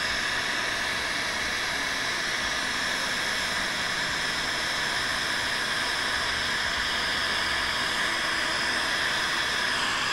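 Electric heat gun blowing steadily, a constant hissing air rush with a faint steady whine, heating a lead jig head so that powder paint will stick to it.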